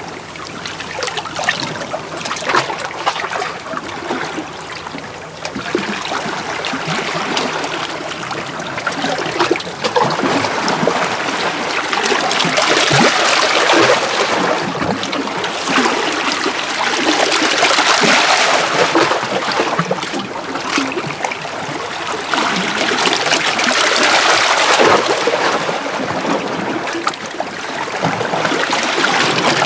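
Small sea waves washing in and out over shore rocks: a steady wash of splashing and trickling water that swells and eases every few seconds.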